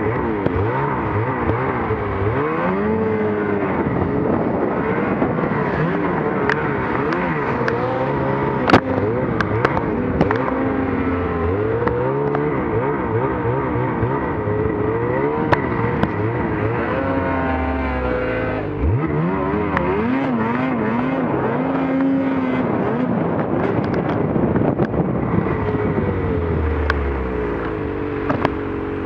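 Snowmobile engine revving up and down over and over as the sled works through deep powder, with other sleds running close by. There is a sharp knock about nine seconds in.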